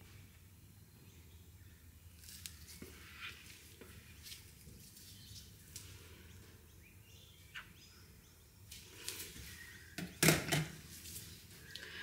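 Quiet handling of a plastic measuring jug and spatula while soap batter is scraped into a tube mold: scattered light plastic clicks and taps. About ten seconds in comes a louder plastic clatter as the jug is set down.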